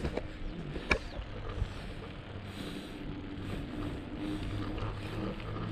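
Bicycle rolling down an asphalt road, heard from the bike as a steady low rumble of tyres and riding noise, with one sharp knock about a second in.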